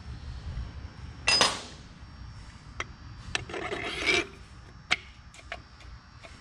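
Metal parts being handled and fitted: a sharp clink with a brief ring about a second in, a scraping rub around three and a half to four seconds, and a few light clicks.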